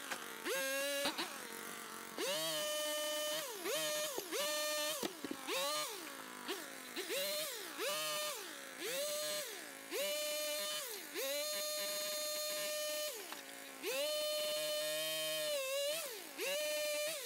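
Powered pole saw cutting limbs: its motor speeds up to a steady high whine, holds, then winds back down, over and over, a dozen or so times, a few runs lasting a couple of seconds.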